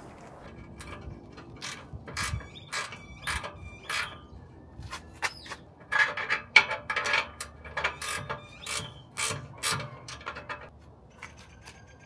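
Hand ratchet clicking in quick repeated strokes as a fitting on the Foxbody Mustang's rear axle housing is turned, with the clicks loudest midway and thinning out near the end.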